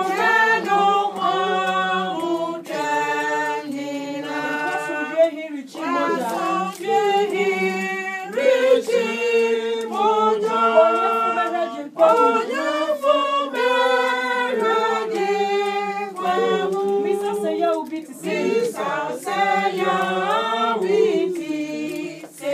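A small congregation singing a hymn together, unaccompanied, in sustained phrases.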